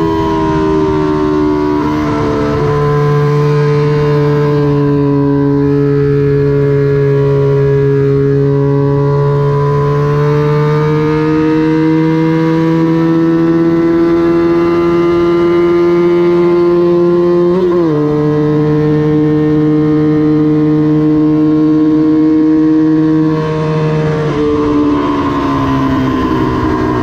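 Small vintage Honda parallel-twin motorcycle engine racing at high revs, its pitch held high and slowly climbing for long stretches. It breaks briefly about 18 seconds in, then drops in pitch and loudness near the end as the throttle closes.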